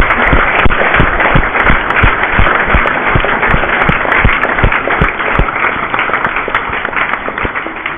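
Audience applauding at the end of a reading, loud and dense, with a steady beat of low thuds about three a second through the first five seconds; the applause dies away near the end.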